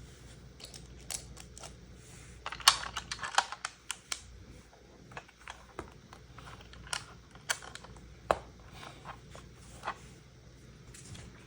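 Small plastic LEGO pieces clicking and clattering as they are handled, with a quick cluster of clicks about two and a half seconds in and single taps spread through the rest.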